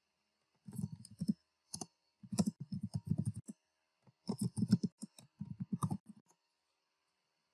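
Computer keyboard and mouse clicking in short quick runs of keystrokes, several a second, stopping about six seconds in.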